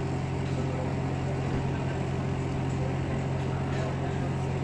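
Steady low mechanical hum, unchanging throughout, over faint background noise.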